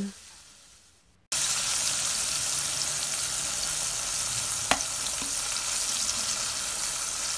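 Liver pieces frying in hot oil in a pan: a steady, dense sizzle that cuts in abruptly after about a second of near silence, with one sharp tick about halfway through.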